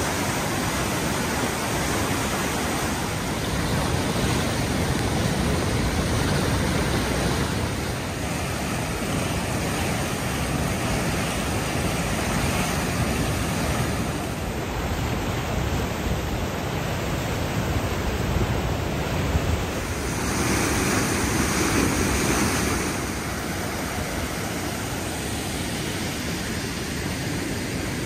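The Dornbirner Ach in flood after heavy rain: a steady, loud rushing of fast, churning brown water.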